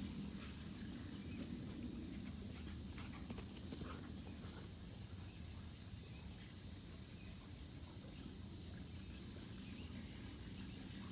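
Faint footfalls and scuffling of dogs running across a grass lawn, most of them in the first few seconds, over a steady low hum.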